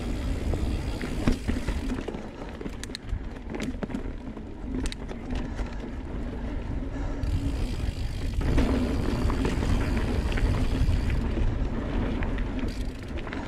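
Santa Cruz Blur full-suspension mountain bike rolling fast along a dirt singletrack: a steady rumble of tyres and wind on the microphone, with a run of sharp clicks and rattles from the bike about two to five seconds in. The rumble grows louder from about two thirds of the way through.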